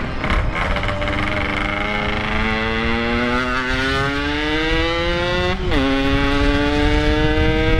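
Yamaha RX-King's 135cc two-stroke single-cylinder engine, through a stock-style packed exhaust, accelerating hard with its pitch rising steadily. The pitch drops sharply at a gearshift about five and a half seconds in, then climbs again in the next gear.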